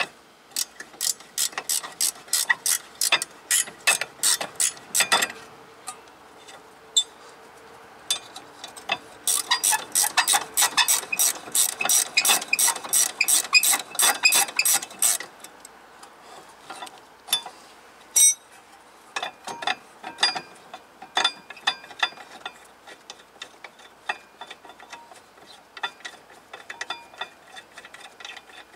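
Hand ratchet wrench clicking in quick back-and-forth strokes while working the rear brake caliper bracket bolts: two long fast runs of clicks in the first half, then scattered shorter bursts.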